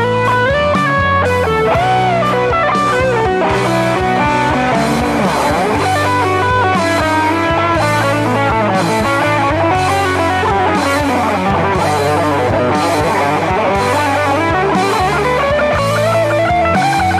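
Rock music with electric guitar playing a fast lead melody over bass and a steady beat.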